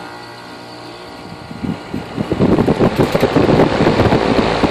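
Comfortmaker HVAC package unit running with its contactor pushed in: a steady machine hum with a clear pitched tone. About two seconds in, a louder, irregular rushing noise joins it.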